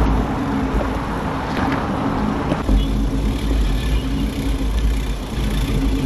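Riding noise from a moving motor vehicle: a steady engine drone under heavy wind rumble on the microphone. About two and a half seconds in, the hiss eases and the low rumble grows stronger.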